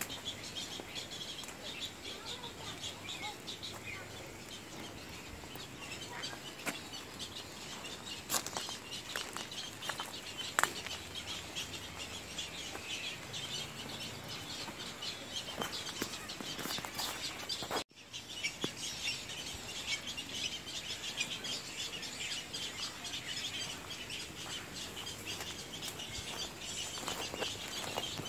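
Birds chirping steadily, with a few sharp clicks and a brief cut-out about eighteen seconds in.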